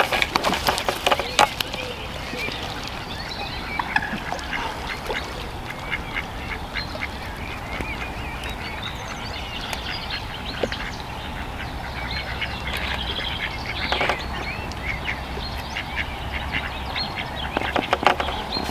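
Ducks quacking and calling around the water's edge, with many short chirping calls throughout. A few sharp clicks in the first second or so.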